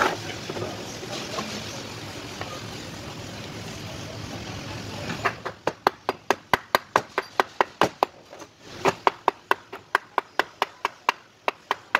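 Steady workshop background noise, then from about five seconds in a rapid run of sharp, evenly spaced taps, about five a second, with a brief break partway through.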